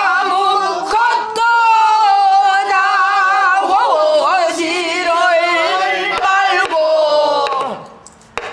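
A woman singing pansori in one long, wavering sung line, accompanied by a few sharp strokes on a buk barrel drum. The voice falls away near the end.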